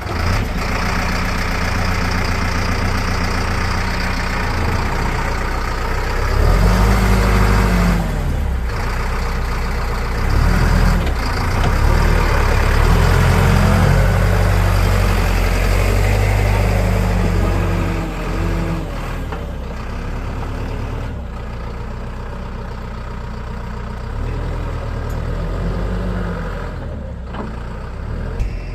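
Backhoe loader's diesel engine running at work, revving up and dropping back several times as the hydraulics are loaded, with a few sharp knocks along the way.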